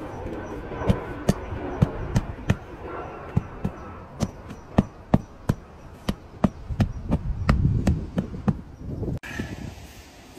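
A steel tyre lever striking repeatedly inside a truck tyre: about twenty sharp blows, roughly three a second, stopping abruptly about nine seconds in.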